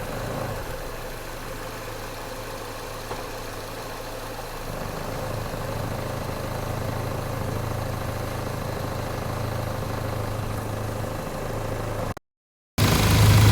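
A 2016 Ford Escape's engine idling, on a car suspected of worn motor mounts. About five seconds in the idle gets louder, with a stronger low hum. Near the end the sound drops out for about half a second, then comes back louder.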